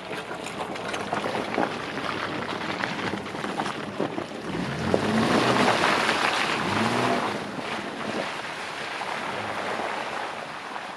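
Jeep driving over a rough, wet off-road track: engine, tyres and knocks of the vehicle over the ground, with a louder rush of noise for a couple of seconds around the middle.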